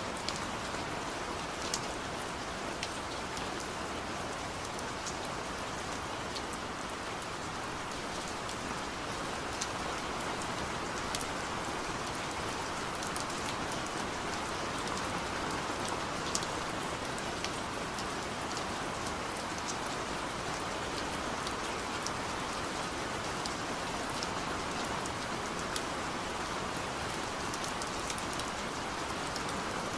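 Steady rain falling, a continuous even hiss with scattered sharper drops pattering on a surface.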